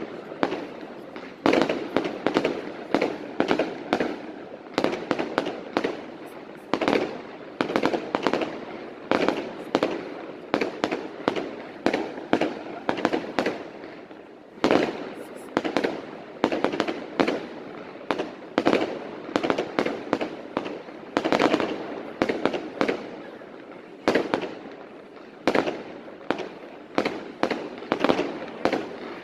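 Fireworks display: a dense barrage of sharp bangs and reports, several a second, with a couple of brief lulls.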